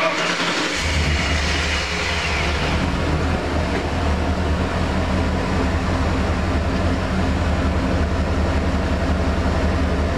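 1996 Ford F-150's 5.0-litre V8 starting up and settling into a steady idle, its low hum strong and even from about a second in.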